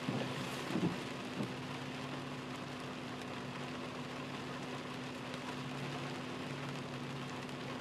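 Rain falling on a car's windshield and roof, heard from inside the cabin, with a steady low hum beneath. Two short knocks about a second in.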